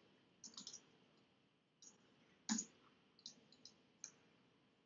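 Soft, scattered clicks of a computer keyboard and mouse. There is a quick run of clicks near the start, a slightly louder single click about halfway, and another short run after it.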